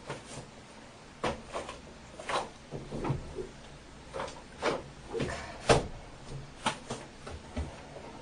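A dozen or so irregular knocks and clicks, like objects being handled and set down and a cupboard or drawer being opened and shut in a small room.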